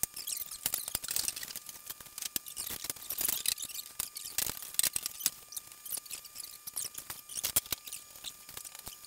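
Rapid, irregular clicks, taps and squeaks from hard truck-bed cover panels being handled, set down and pressed into place on a pickup's bed rails.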